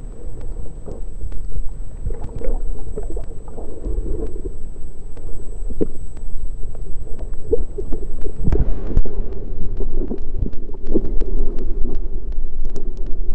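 Muffled water sloshing and lapping against a waterproof camera held at the water's surface, a steady low rumble with scattered knocks and clicks. About two-thirds through it grows louder and denser.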